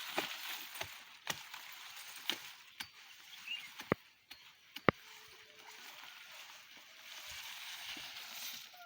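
Napier grass being cut by hand: rustling of the tall grass, broken by irregular sharp snaps and knocks of the stalks, the loudest a little before the middle.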